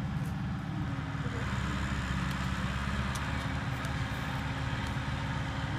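RNLI lifeboat launch tractor's diesel engine running steadily as the tractor manoeuvres with the lifeboat carriage in tow, getting a little louder about a second and a half in.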